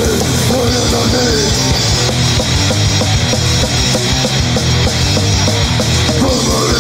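Loud grindcore music: heavily distorted guitars and bass over rapid, dense drumming.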